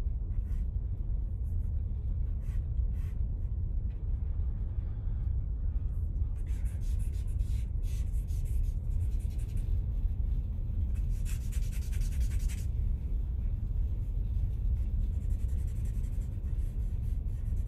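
Charcoal scratching across drawing paper in several spells of quick short strokes, over a steady low background rumble.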